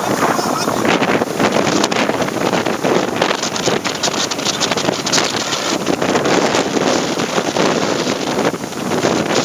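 Strong wind buffeting the microphone over breaking surf, a loud, gusty rush without let-up.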